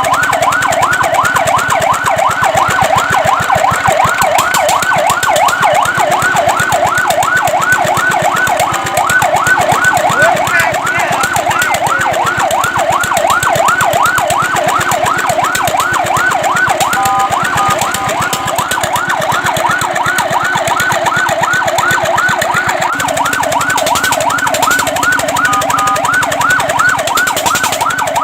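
Fire truck electronic siren in a fast yelp, its pitch sweeping up and down about three or four times a second. A few times it breaks briefly into a steady held tone before the yelp resumes.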